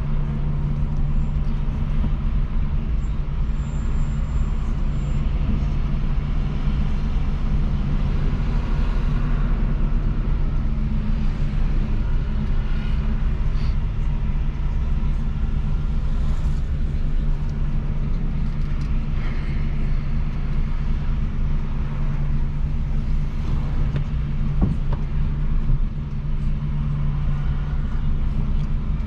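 Peugeot 206 1.4 four-cylinder engine with a straight-pipe exhaust (no muffler), running steadily at low revs with a constant low drone.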